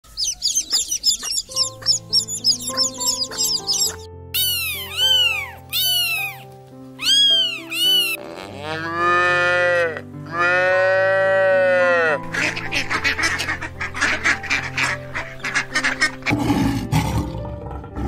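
Farm and wild animal calls over background music: chicks peeping rapidly at first, then two long cow moos in the middle, and a lion beginning a low roar near the end.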